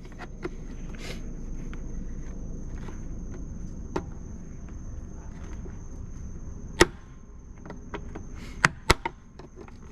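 Sharp clicks and snaps of a screwdriver prying at a tight plastic retaining cap on a tail light housing, a few spaced apart with two in quick succession near the end. A steady high insect trill runs underneath.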